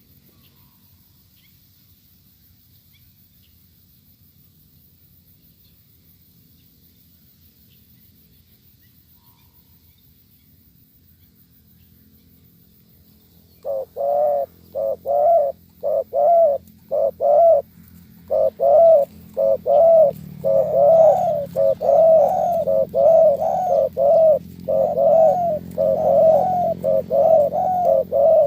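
Spotted dove cooing. After a stretch of faint background hum, a long series of loud, repeated coo notes starts about halfway through, at roughly two notes a second.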